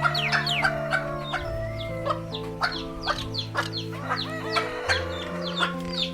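Chickens clucking, a rapid run of short falling calls several times a second, over background music of sustained chords that change every second or two.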